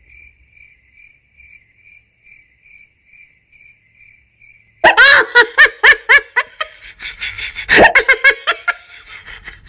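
Faint cricket chirping, an even, high-pitched pulsing (the awkward-silence gag), then about five seconds in, loud bursts of laughter.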